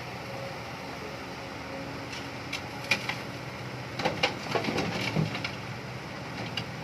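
Kobelco excavator's engine running steadily, with a scatter of sharp knocks and clacks from about halfway through, most of them bunched together a second later.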